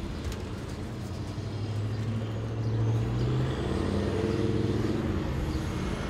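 Heavy road vehicle's engine running on the street, growing louder over the first three seconds and then holding steady.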